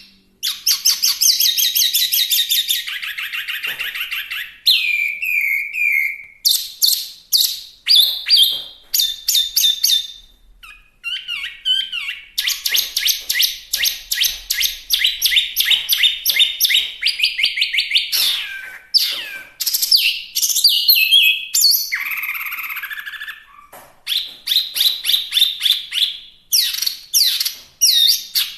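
Chinese hwamei singing a long, varied song of rapid trills, repeated notes and gliding high whistles, with short pauses about ten and twenty-four seconds in.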